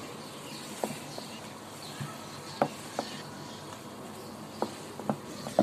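Wooden rolling pin rolling bread slices flat on a marble board: a few light, sharp knocks of the pin and hands on the stone, spaced irregularly over a faint steady hiss.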